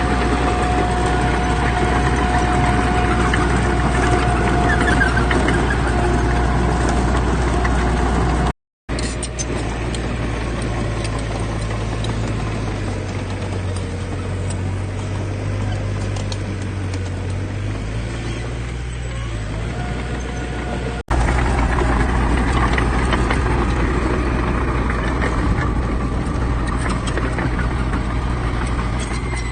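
Diesel engines of heavy earthmoving machines, bulldozers and dump trucks, running steadily under load, a constant low drone with a steady higher whine over it. The sound drops out for a moment about eight seconds in and changes abruptly at an edit about twenty-one seconds in.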